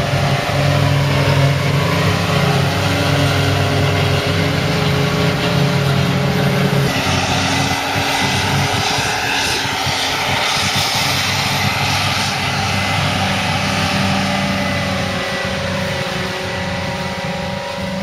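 Heavy diesel farm machinery working silage runs loud and steady with a deep engine drone. About seven seconds in, the engine note shifts and a rushing noise rises over it.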